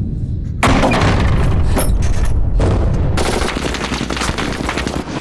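Battle sound effects of heavy gunfire and blasts: a sudden loud burst about two-thirds of a second in, then dense, continuous shooting over a low rumble.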